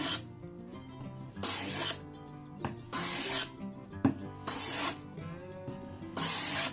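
Metal bench hand plane taking shavings off an aspen board in repeated strokes, a rasping hiss about every second and a half, with a sharp knock just before some strokes. Background music plays underneath.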